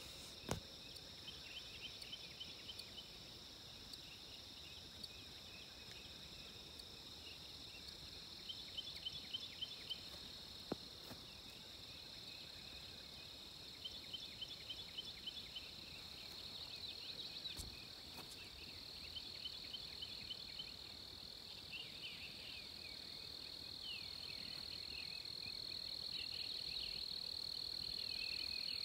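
Faint, steady high-pitched trilling of insects, with short bursts of rapid chirps repeating every few seconds and a few faint clicks.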